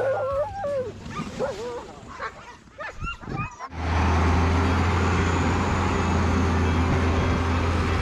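Sled dogs yipping and howling in short calls that rise and fall. After a sudden cut about three and a half seconds in, a Tundra Buggy's engine runs with a steady low drone.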